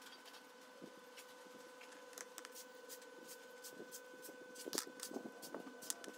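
Small clicks and taps of plastic and metal model parts being handled and fitted together as a shaft is pushed into a miniature RC-truck differential housing, with the loudest cluster of clicks about three-quarters of the way through. A faint steady hum runs underneath.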